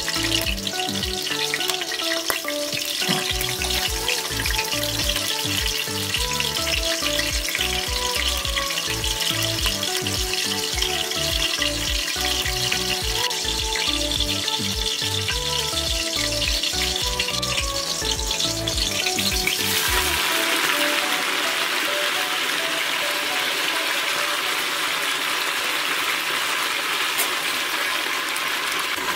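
Whole spices, green chillies and bay leaves sizzling in hot oil in an aluminium pressure cooker, under background music. About twenty seconds in, the music stops and the sizzling grows louder and fuller as mint leaves go into the oil.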